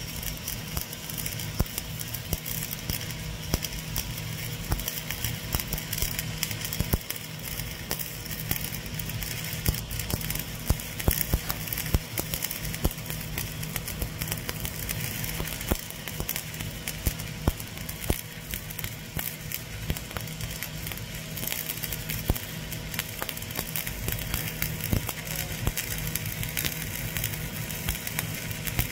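Stick-welding (SMAW) arc crackling steadily as the electrode burns along a vertical fillet joint, with sharp pops scattered all through.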